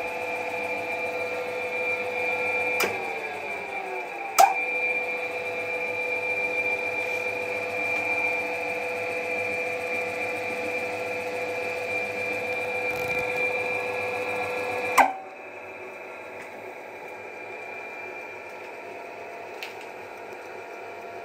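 AEG bench drill press running free with a steady motor and spindle whine. About three seconds in there is a click and the whine sinks in pitch; a second and a half later a sharp click brings it back up to its steady note. About fifteen seconds in a loud click comes, after which the machine runs on much more quietly.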